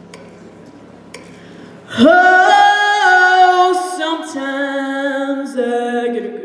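A group of women singing together in harmony, coming in suddenly about two seconds in on a loud held chord and moving through long sustained notes.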